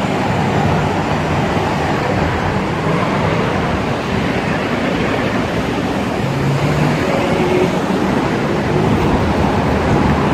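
Steady road traffic noise, with the hum of passing vehicle engines coming and going over a continuous rush of tyres and air.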